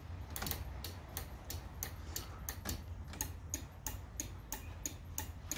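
Car turn-signal indicator ticking steadily, about four sharp clicks a second, as the flasher switches the lights on and off.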